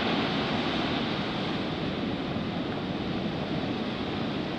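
Ocean surf breaking and washing up the beach: a steady rush of waves with no distinct events.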